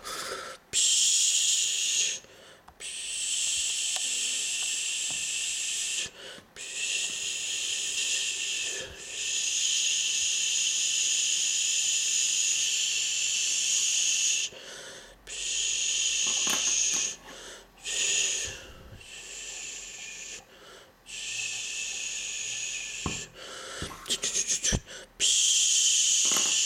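A breathy, mouth-made 'pshhh' hiss standing in for a toy fire extinguisher spraying, repeated in bursts of one to five seconds with short breaks between them.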